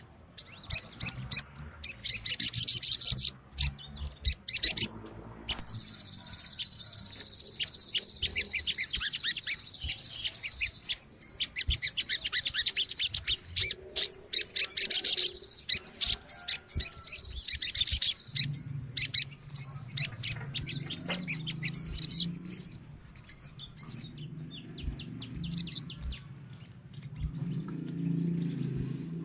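Several sogon birds calling together in dense, rapid chattering trills that overlap and never stop for long. A low steady hum comes in about two-thirds of the way through, and a thin high steady tone sits under the calls near the end.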